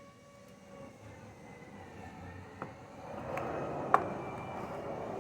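A few sharp clicks and taps of parts being handled as a carburetor is pushed back into place and its vacuum line fitted, the loudest click near the end. Under them is a faint steady noise that grows louder about three seconds in.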